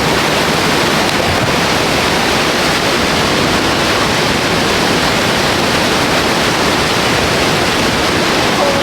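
Loud, steady rush of falling water, an even roar with no breaks.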